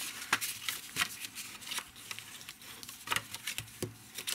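Designer paper being folded along its score lines and creased flat with a bone folder: an irregular run of light taps, rustles and scrapes.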